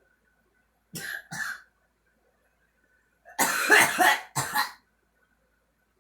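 A girl coughing: two short coughs about a second in, then a louder run of about three coughs a couple of seconds later.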